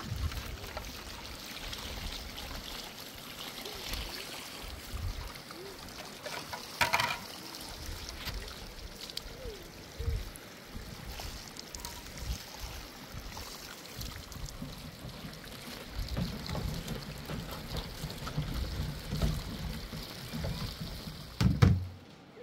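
Water trickling and splashing in a small spring pool as it is scooped and scraped, with wind buffeting the microphone and a few sharp knocks of a tool on stone.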